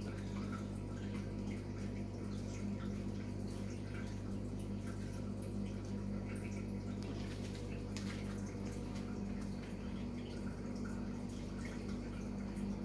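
A steady low electrical hum, with faint scattered clicks and rustles and one sharper click about eight seconds in.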